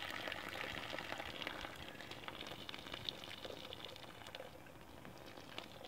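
Faint bubbling and trickling of hot maple syrup as the last of the finished syrup drains in a thin stream from the evaporator pan's valve, fading gradually.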